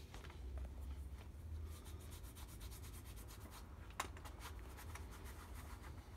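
Faint rubbing and scratching with scattered light clicks and one sharper click about four seconds in, over a low steady hum.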